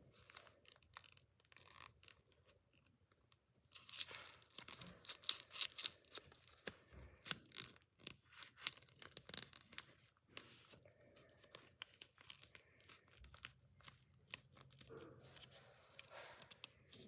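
Paper crinkling and crackling as hands fold, tuck and crease a paper origami jet, a run of short sharp crackles that is busiest through the middle stretch.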